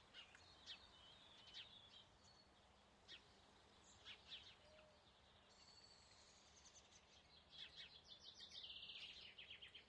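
Faint forest birdsong: scattered high chirps, then a fast trill near the end.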